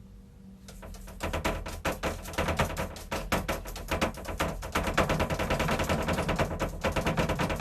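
A fast, uneven run of sharp taps or clicks starting about a second in and getting louder, over a low hum.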